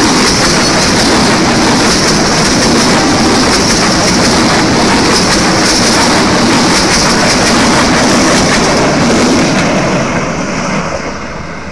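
Passenger coaches of a locomotive-hauled train rolling past at speed close by, the wheels clicking over the rail joints. The noise drops away near the end as the last coach passes and the train moves off.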